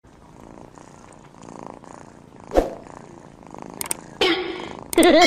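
Domestic cat purring softly while curled up resting, with one sharp tap about two and a half seconds in and a brief rustle near the end.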